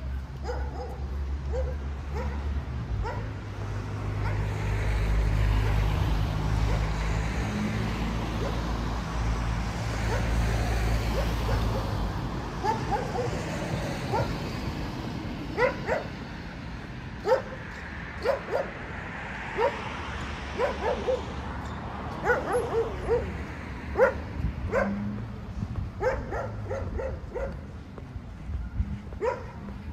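A dog barking in short, repeated yaps through the second half, singly and in quick runs. Earlier there is a low rumble of road traffic that swells and fades.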